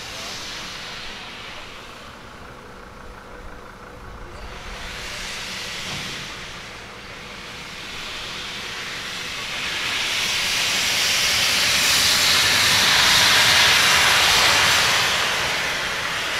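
Steam locomotive 23 042 (a DB class 23) hissing as it vents steam, in surges: a short one at the start, another about five seconds in, and a longer, louder one building from about ten seconds and easing off near the end.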